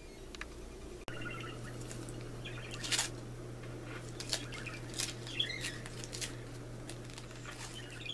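Paper wrapper of an ice cream sandwich rustling and crinkling as it is unwrapped by hand, in short crackles. Birds chirp in the background, and a steady low hum comes in about a second in.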